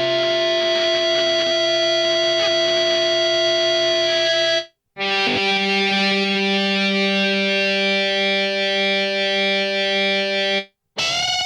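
Electric guitar feedback samples played through a Korg NTS-1 running the Sinevibes Finite effect: two long held feedback tones, each about five seconds, with a short silence between them. There is a click as the second tone starts.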